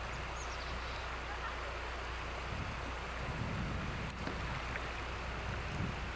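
Steady hiss of outdoor background noise on an old camcorder's soundtrack, under a low electrical hum, with a few soft low rumbles of wind on the microphone.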